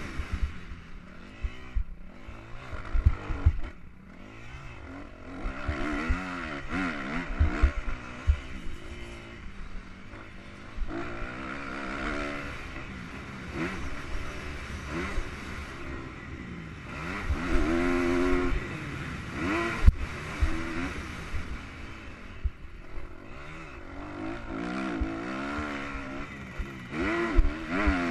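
Kawasaki KX250F single-cylinder four-stroke motocross engine heard from on the bike, revving up and dropping off again and again through gear changes and corners of a dirt track. Low thuds and wind rumble run underneath, with one sharp knock about two-thirds of the way through.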